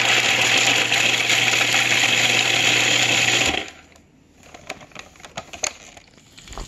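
Electric food processor running steadily, its blade chopping garlic cloves, with the motor cutting off suddenly about three and a half seconds in. A few light clicks follow.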